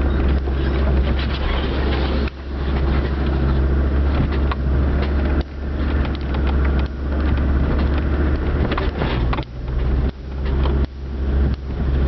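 Land Rover Discovery Td5's five-cylinder turbodiesel engine running under load on a steep off-road climb, heard from inside the cab as a steady low drone. The drone drops sharply and builds back up several times, more often in the last few seconds, with scattered knocks and rattles throughout.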